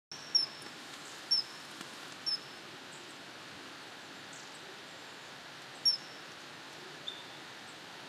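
Common kingfisher calling: four short, sharp, high-pitched whistled notes spaced about a second apart, then another after a gap of a few seconds, with a fainter, lower chirp near the end, over a steady background hiss.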